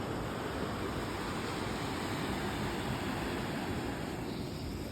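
Ocean surf, a steady rushing noise with no distinct wave crashes.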